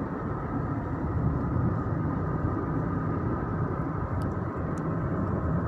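Steady road and engine noise inside a moving car's cabin, with a couple of faint ticks about four seconds in.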